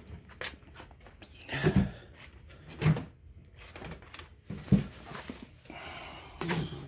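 A few separate dull knocks and clunks, about four spread over seven seconds, from parts and tools being handled and set down during work on a motorcycle.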